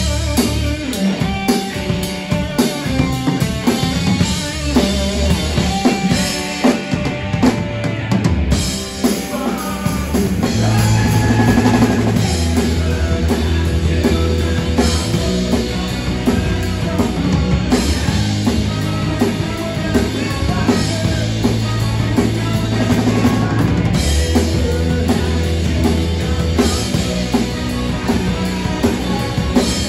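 Live rock band playing, with the drum kit close and prominent over bass, electric guitar and a horn section. The band thins out briefly around eight seconds in, then comes back in fuller and heavier.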